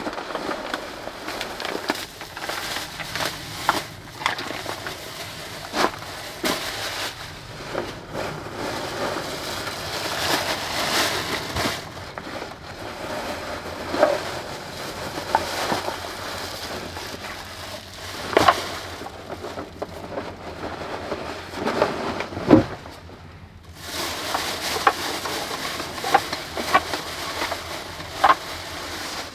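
Rustling and crinkling of plastic bags and a backpack being unpacked by hand, with scattered knocks as items are set down on a wooden table and one heavier thump about two thirds of the way through.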